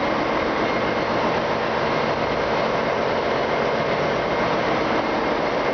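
Steady, loud machinery drone of a ship's engine room, with a faint high whine held throughout. The main engines are stopped, so the noise comes from other machinery that is still running.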